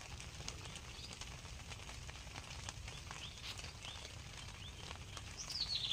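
Quiet rural outdoor ambience: a few faint short bird chirps, then a louder falling bird call near the end, over a low steady rumble.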